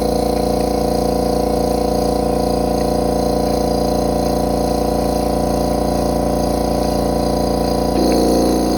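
EMAX Hulk 2 HP silent-air compressor running with its intake air filters and silencer pipes removed, a steady, loud mechanical drone like a typical air compressor. About eight seconds in, its tone shifts and it briefly gets a little louder.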